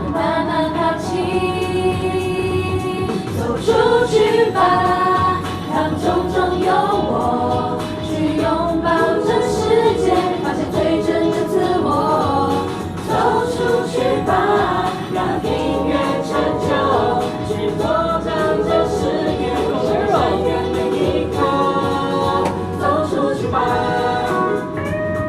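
Song with a group of voices singing together over a steady low beat.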